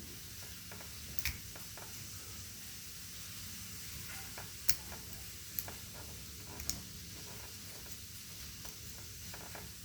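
Quiet scraping and light metallic ticking of a homemade antenna pick working the pins of a Master Lock 140 padlock held under tension, with a few sharper clicks, the loudest about four and a half seconds in.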